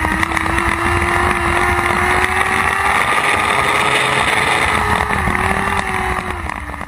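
Lightning Sprint race car's engine running at high, fairly even revs, heard from inside the car with wind rushing past. The pitch creeps up slowly, then eases off a little near the end.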